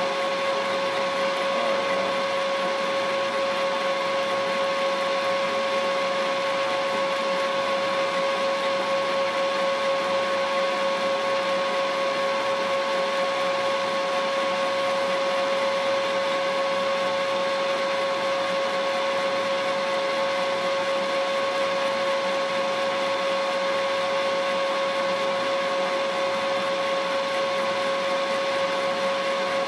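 Milling machine running steadily with a constant whine, its spindle turning an end mill.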